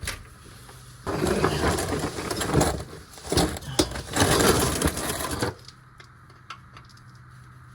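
Crinkling, rustling packaging handled for about four seconds with small clicks and rattles, as the new oil filter is taken out of its wrapping.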